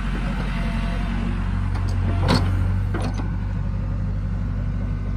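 Kobelco SK75UR mini excavator's diesel engine running steadily while the machine works on a test run after repair. A sharp knock comes a little over two seconds in, followed by a weaker one.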